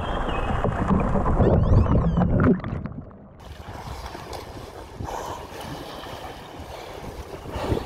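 Sea water and wind on an action camera's microphone: a loud, low rushing wash that cuts off abruptly about two and a half seconds in, then quieter wind and lapping water with a brief louder rush near the end.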